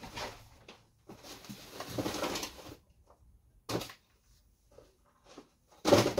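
Rustling and handling noise with a few knocks, the loudest about six seconds in.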